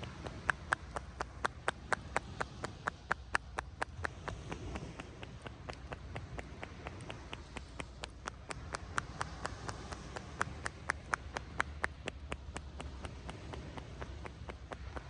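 Tapotement massage: hands striking the shoulders and back in a fast, even rhythm of sharp taps, about three to four a second, over a low steady background noise.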